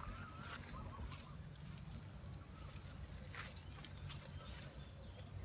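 Steady high-pitched trilling of insects, with scattered sharp clicks and a low rumble underneath.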